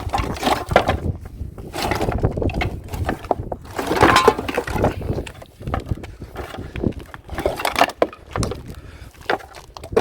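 Irregular knocks, clinks and cracks as scrap is pulled and cut apart by hand, likely while an extension cord is being cut off for its copper wire.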